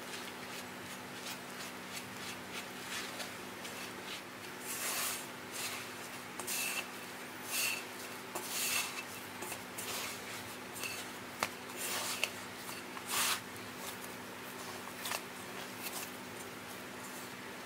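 Dough being mixed and kneaded in a glass bowl: a silicone spatula stirring flour, then a hand squeezing and rubbing the crumbly dough against the glass, in irregular scraping bursts with an occasional brief squeak. A low steady hum runs underneath.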